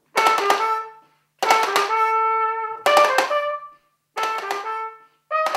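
Trumpet playing four short phrases with brief gaps between them, each phrase opening with drumstick taps on a small tin box, with a child's harmonica playing along.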